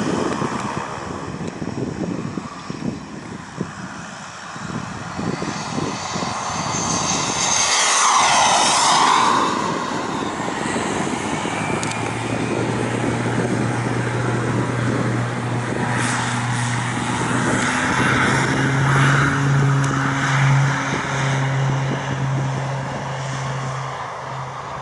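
The small turbine engine of a radio-controlled Black Horse Viperjet model jet, whining and rushing as the jet flies around. It gets loudest in a close fly-by about eight seconds in, where the sound swells and sweeps in pitch as it passes.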